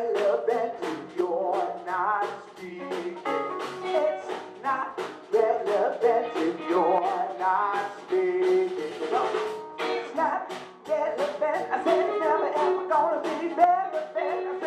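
Live soul band playing, with a steady drum beat under guitar and other pitched instruments.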